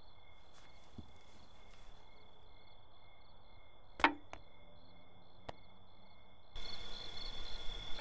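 Crickets chirping steadily in pulsing high trills. About four seconds in there is a sharp click, with two lighter clicks after it, and near the end a rougher rushing noise rises.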